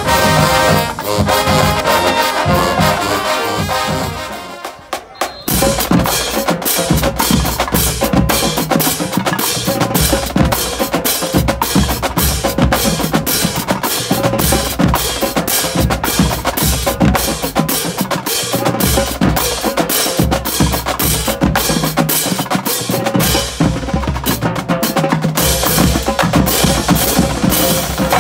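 Marching band brass plays for the first few seconds and drops away; about five seconds in, a marching drumline of snare drums, tenor drums, bass drums and cymbals starts a fast, loud cadence that runs on steadily.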